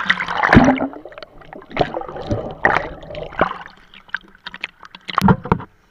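Water splashing in a swimming pool: a big splash near the start, then irregular smaller splashes and sloshing.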